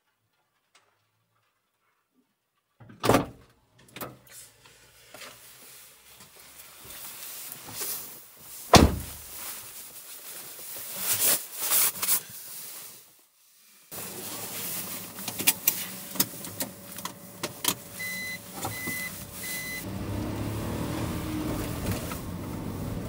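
Sounds of a car being got into and started: a click and handling noises, one heavy thump like a car door shutting, then a steady hum with three short high beeps and a low rumble rising near the end.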